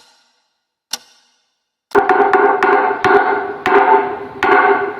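Two sharp wooden knocks, then a fast run of resonant pitched percussion strikes, a cartoon sound effect marking that the time to break the fast has come.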